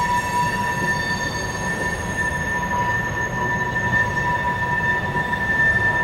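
Freight train of oil tank cars rolling past with a low rumble, the wheels giving a steady high squeal of several held tones.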